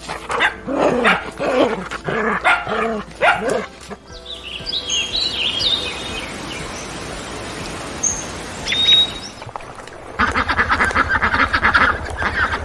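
Several animal recordings in a row: a dog barking repeatedly for the first few seconds, then high bird chirps over a steady noisy background, and a rapid run of fowl calls in the last couple of seconds.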